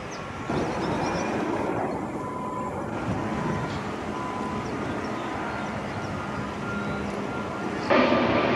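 Steady vehicle and traffic noise, getting louder about half a second in and jumping up again sharply near the end.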